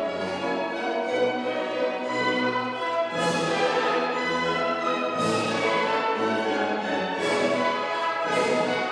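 Orchestral classical music accompanying a ballet solo. From about three seconds in, strong accented chords strike roughly every two seconds.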